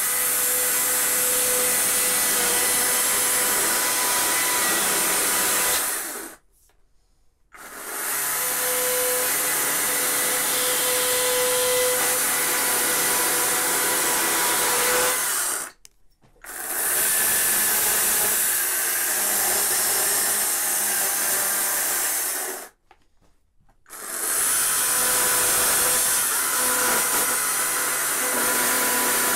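Battery-powered chainsaw cutting into the wood to rough out a carved tree's trunk, with a steady motor whine under the chain noise. It runs in four long stretches, stopping briefly three times.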